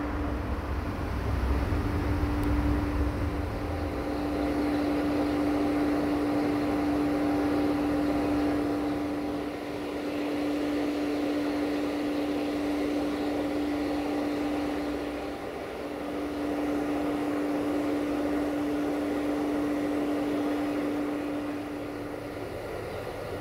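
MTU-engined 060-DA diesel-electric locomotive standing at idle: a steady drone with a steady humming tone over it. The hum breaks off for a moment about two-thirds of the way through and stops shortly before the end, when the sound drops.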